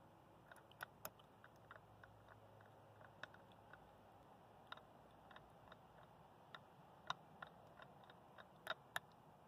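Loose stamped steel torque arm clicking against the flats of an eBike hub motor axle as it is rocked back and forth by hand, in faint irregular clicks, the loudest near the end. The clicks come from play in the torque arm's slot, which lets the motor axle turn in the fork dropouts.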